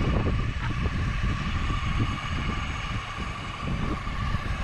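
Electric fishing reel's motor winding in line with a steady whine, under heavy wind buffeting on the microphone.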